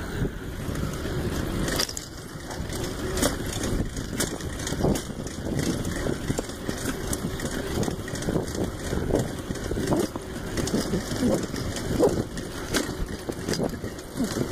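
Bicycle being ridden along a concrete path: a steady rumbling road noise with many quick rattles and clicks from the bike.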